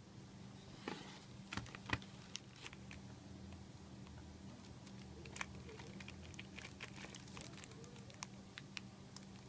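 Buffalo BSKBW10BK wireless keyboard, still in its plastic film, being lifted out of its cardboard box and handled: scattered clicks and taps, the sharpest in the first two seconds, with light crinkling of the plastic wrap.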